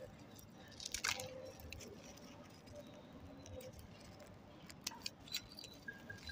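Dry red sand-cement block crushed and crumbled by hand on a concrete floor: gritty crunching with scattered crackles as grains and small lumps break off, a cluster about a second in and more near the end.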